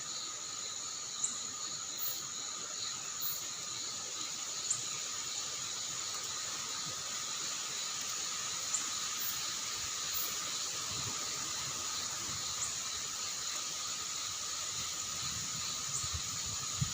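Crickets chirping steadily in several high, continuous tones, one of them pulsing, over a constant hiss of wind and light rain, with a few faint scattered ticks.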